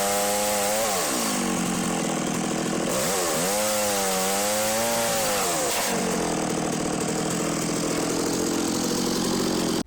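STIHL MS 660 two-stroke chainsaw with a long ripping-chain bar running at high revs. Its pitch sags about a second in, climbs back around three seconds and sags again near six seconds, as the engine comes under load in the cut.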